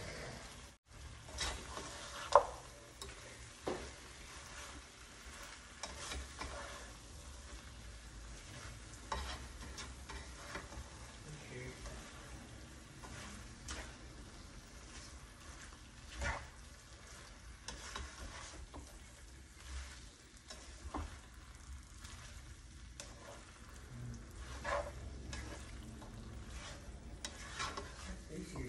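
Gobi Manchurian being stirred in a pan: fried cauliflower florets are tossed through the thick sauce with a slotted spatula. A low sizzle runs under irregular scrapes and knocks of the spatula against the pan, the sharpest about two seconds in.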